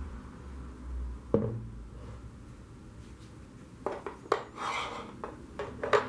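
A wooden block set down on a board with one sharp knock, then a run of light metallic clicks and scraping as a small brass bracket is put down and slid against the wood.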